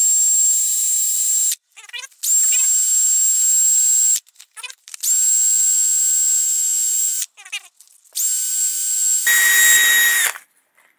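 Cordless drill spinning the spade bit's screw while it is polished with 400-grit sandpaper held against it. The motor runs in four bursts of about two seconds each, a steady high whine that starts and stops between them. In the last burst the whine drops lower and fuller for about its final second.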